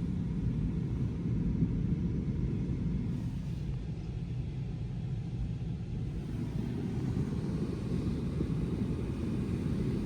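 Strong wind buffeting the microphone: a steady, rough low rumble.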